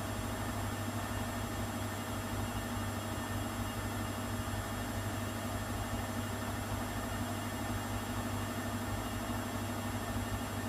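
Schulthess Spirit 6155 washing machine running with its drum at rest and some water in it: a steady low hum over an even hiss, with no tumbling or sloshing heard.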